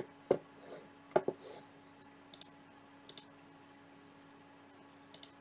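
Two sharp plastic-and-metal clicks about a second apart, then a few faint ticks, from the Joby GorillaPod 5K's quick-release clip and mounting plate being handled, over a faint steady hum.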